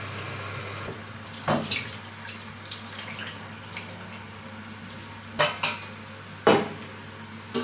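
Water poured from a stainless steel cooking pot into a steel kitchen sink, with the metal pot clanking several times: once about a second and a half in, then a few times near the end.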